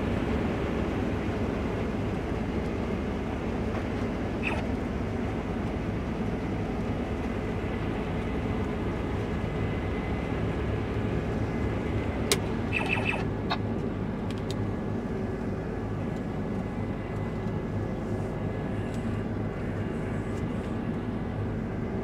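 Combine harvester running steadily while cutting wheat, its engine and threshing machinery a constant hum as heard from the cab. A sharp click and a brief high tone sound a little past halfway.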